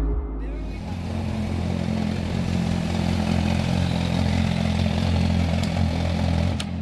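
Suzuki GSX-R1000 sports bike's inline-four engine idling steadily at one pitch, not revved.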